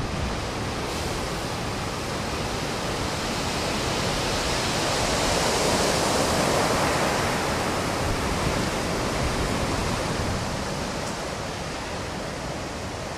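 Storm-surge waves washing up over a black sand beach: a steady rush of surf and foam that swells to its loudest about halfway through, then eases.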